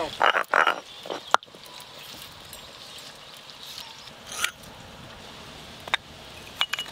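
Frogs croaking in a few short calls over a faint, steady outdoor background.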